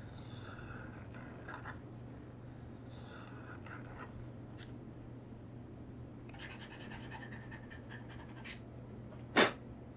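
Small wooden Okada hand plane shaving the edge of a layered leather knife sheath: three scraping strokes with a thin pitched edge to them, the third the longest. Near the end a single sharp knock, the loudest sound.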